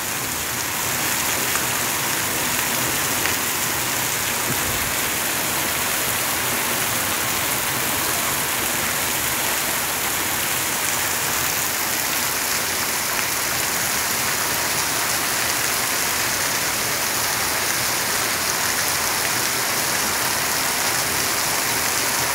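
Rain falling steadily on a street, a dense, even hiss.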